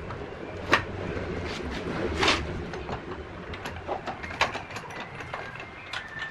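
Irregular clicks and knocks, with a short scraping rush about two seconds in, over a low steady hum.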